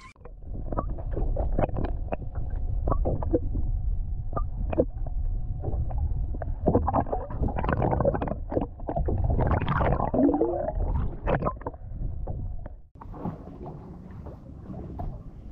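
Sea water heard through a camera submerged beside a boat hull: a heavy low rumble and gurgling with irregular knocks and clicks. It cuts off abruptly about thirteen seconds in, leaving a quieter, lighter water noise.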